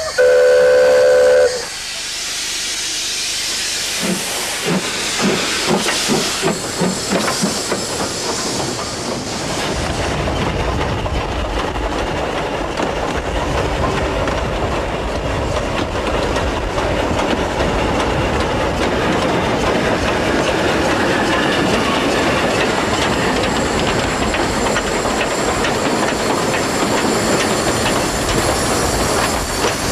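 Ex-South African Railways NG15 class 2-8-2 narrow-gauge steam locomotive gives one short whistle blast, about a second and a half long. Steam hisses, and the locomotive starts away with exhaust chuffs about two a second. These give way to the steady running noise of the train on the rails.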